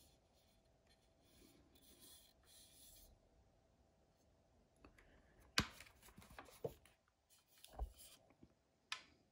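A cordless circular saw being handled: faint rubbing of fingers over its base plate, then, about halfway through, a sharp click followed by a run of small clicks and rattles, a dull knock and one last click as the saw is shifted and turned over.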